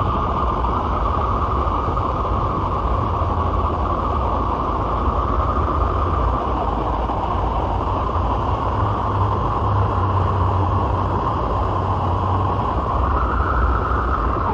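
Synthesized UFO spaceship sound effect: a steady, loud hum-and-rumble drone with a rough hissing edge, its upper band brightening slightly near the end.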